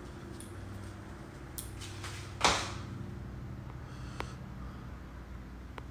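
Steady low hum of room noise picked up by a phone's microphone. About two and a half seconds in there is one short, loud burst of noise close to the microphone, and a faint click comes near four seconds.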